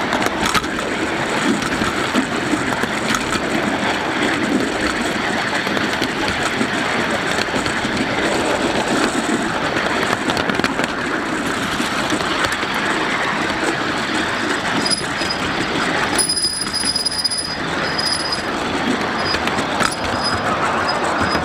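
Wheels of a 7.5-inch gauge ride-on live steam train rolling along the track under the caboose: a steady rumble and rattle with scattered clicks from the rail joints. Late on, a thin high squeal comes and goes.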